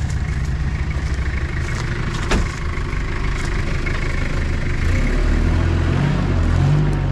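Diesel four-wheel drive's engine running at low revs while manoeuvring, with one sharp knock a little over two seconds in. From about five seconds in the engine note rises and gets louder.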